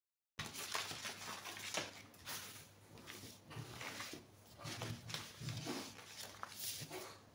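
Paper rustling and crinkling as a cut-out paper bodice pattern is handled and folded, starting abruptly about half a second in and coming in uneven swells.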